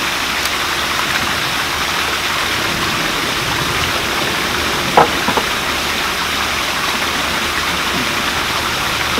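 Steady rush of falling water from a pool waterfall, with one brief sharp sound about five seconds in.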